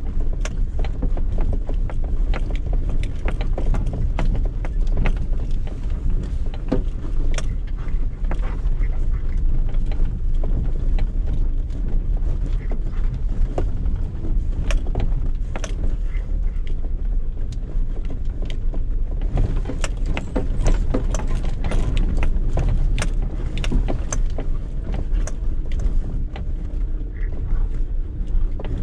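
Cabin sound of a 2013 Suzuki Jimny's 1.3-litre inline-four driving slowly off road: a steady low engine and drivetrain rumble with frequent knocks and rattles as the body and tyres jolt over the rutted dirt track. The knocks come thicker about two-thirds of the way in.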